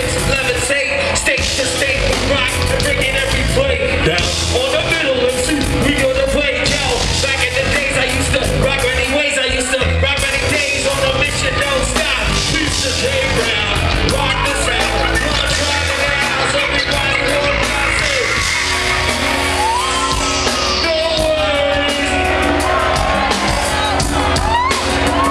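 Loud live music over a big PA with a heavy bass beat and vocals, plus voices yelling over it. Near the end, pitched lines start bending up and down.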